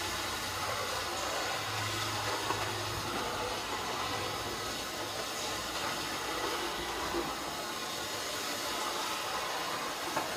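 High-pressure plastic crate washing machine running: a steady hiss of water spray over a low, even hum from the machine.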